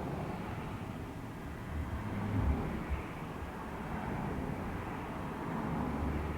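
A car on the road: a steady low rumble of engine and road noise, with two short low thumps around the middle.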